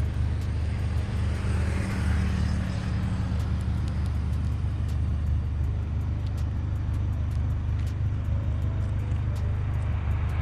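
A car engine running steadily as a low rumble, with a light fast ticking about three times a second.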